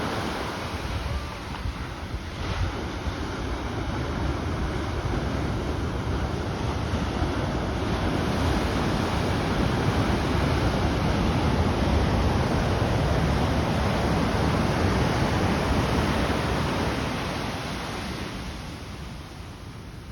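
Ocean surf washing and breaking, with wind buffeting the microphone. The rush swells through the middle and eases off near the end.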